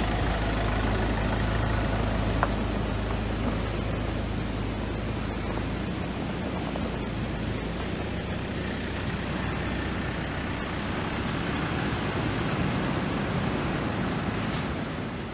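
Steady high-pitched insect chorus running without a break, over a constant low rumble.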